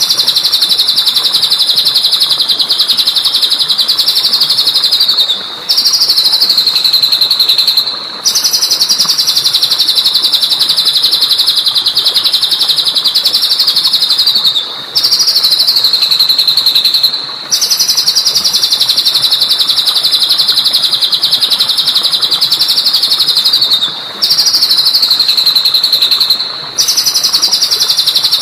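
Songbird from a bird-tutor recording giving a rapid, high-pitched trill. The trill comes in phrases of about three to five seconds, each dropping slightly at its end, with short pauses between them, repeated over and over.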